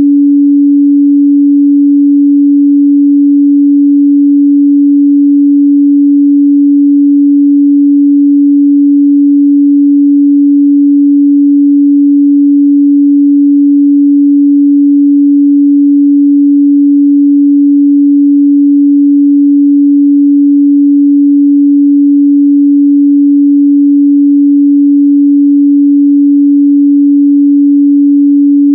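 A steady, loud 285 Hz sine-wave test tone, one pure pitch held without change.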